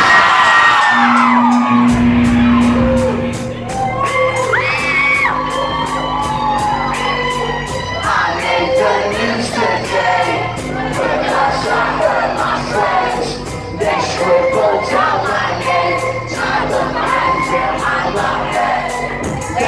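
Live band playing to a cheering crowd: a bass line and a fast, even hi-hat tick come in about two seconds in, with many crowd voices shouting and singing over the music.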